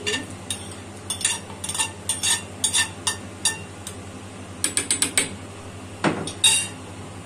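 Metal ladle and spoon clinking and scraping against a stainless steel cooking pot and a ceramic plate while stirring: a quick run of light clinks, a tight cluster of them a little before the end, then two louder scrapes near the end.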